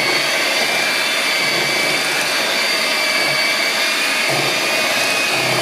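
Handheld electric mixer running steadily, its twin beaters whisking cake batter in a bowl, with a steady high-pitched motor whine.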